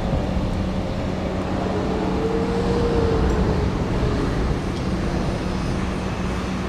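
Steady rumble of road traffic and running engines, with a constant low engine hum under it and a faint whine that swells and fades about halfway through.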